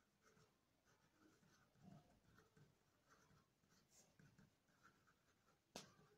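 Faint scratching of a pen writing on paper in short strokes, with one sharp click near the end.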